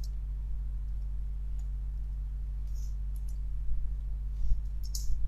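A few scattered, faint clicks of computer keys and mouse buttons, more of them in the second half, over a steady low hum.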